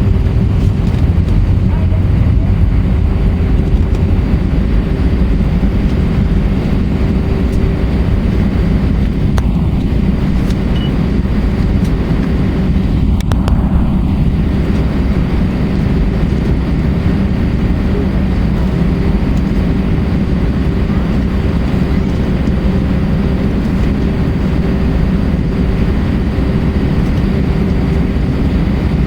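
Airbus A320 cabin noise: the IAE V2500 turbofans give a steady, loud low roar with a constant hum above it.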